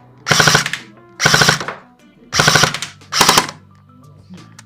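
Airsoft MP7 submachine gun firing on full auto: four short bursts of rapid shots, each about half a second long.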